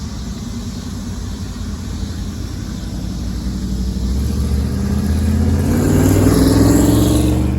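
A vehicle engine running and then accelerating, its pitch rising and its sound growing louder over the last few seconds.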